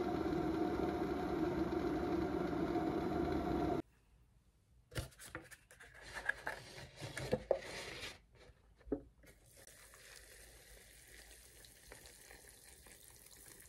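Glass electric kettle heating water, a steady rumbling hiss that cuts off suddenly about four seconds in. Then a few light knocks and clicks of handling, and a faint stream of hot water poured into an instant noodle cup near the end.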